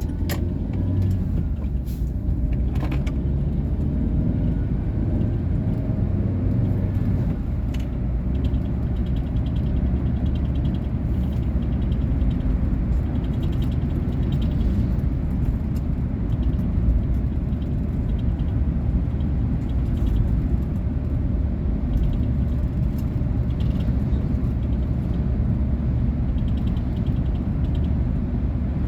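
2019 Volkswagen Polo Vivo being driven: steady engine and road rumble, with the engine pitch rising in the first several seconds and a few faint clicks.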